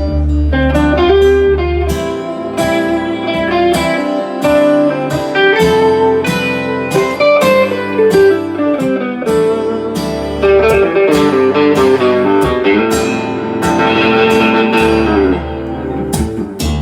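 Live band music in an instrumental break: a guitar picks a lead line of quick single notes over the song's chords. A low bass note drops out about two seconds in and comes back near the end.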